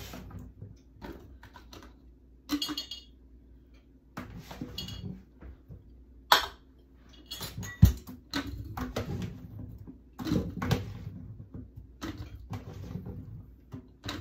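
Kitchen clatter as cubed potatoes are packed into glass canning jars through a canning funnel: scattered clinks and knocks of jars, funnel and utensils, with a heavier thump about halfway through.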